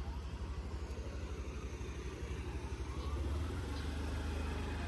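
Honda scooter's small engine idling close by, a steady fast low pulse that gets a little louder about three seconds in.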